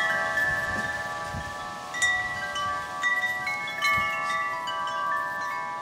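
Chimes ringing: several sustained metallic tones sounding together, with a fresh strike about every second.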